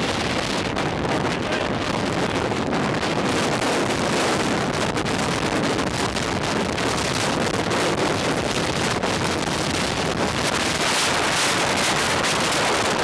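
Strong wind being pulled into a nearby tornado, buffeting the camera microphone: a loud, steady rush of wind noise.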